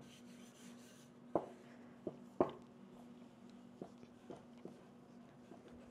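Stainless steel rolling pin rolling out a dense pie-crust dough on a silicone mat: faint rubbing with a few soft knocks, the loudest about one and a half and two and a half seconds in. A steady low hum runs underneath.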